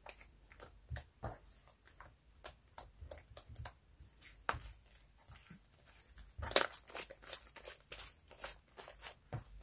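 Soft clay-mixed slime being kneaded, squeezed and stretched by hand, giving irregular sticky crackles and small pops, with a denser run of louder snaps about two-thirds of the way in.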